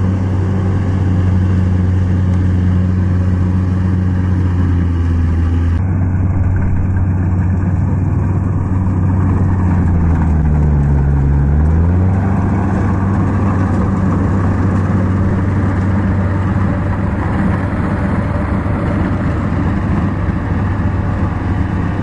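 Kubota DC70 rice combine harvester's diesel engine running steadily under load while it harvests rice. The engine note dips and then comes back up around ten seconds in.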